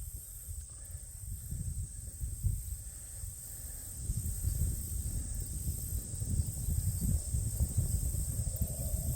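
Wind buffeting the microphone in a light breeze, getting stronger about four seconds in, over a steady high-pitched chorus of insects.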